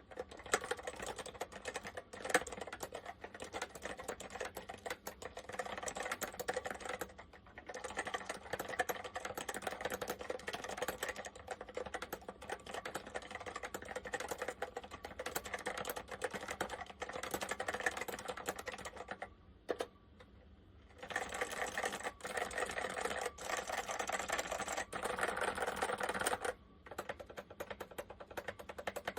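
Apple M0110A keyboard with Mitsumi standard mechanical switches being typed on quickly: a dense run of key clicks that breaks off briefly three times, the longest gap about two-thirds through.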